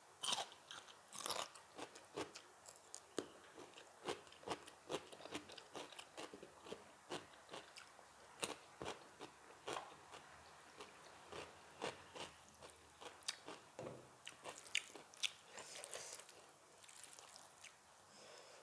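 A person biting and chewing food close to the microphone, with sharp crunches coming two or three times a second.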